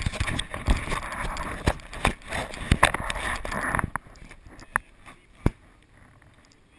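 Wind and water noise on a paddle raft, with scattered knocks and clicks. About four seconds in it drops to a faint hiss broken by two sharp clicks.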